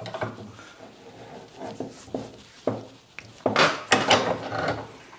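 Bench vise being wound in to press a universal joint's needle-bearing cap into a prop shaft yoke: rubbing and creaking of the vise and metal parts, with scattered knocks. The knocks are most frequent and loudest about three and a half to four and a half seconds in.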